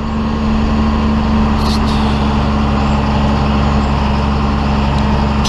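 John Deere 4455 tractor's six-cylinder diesel engine running steadily at an even speed, a constant low hum.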